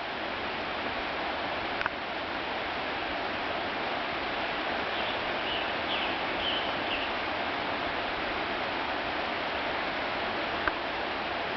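Steady rush of a creek's flowing water. A few faint, short high chirps come about halfway through, and two small clicks sound, one early and one near the end.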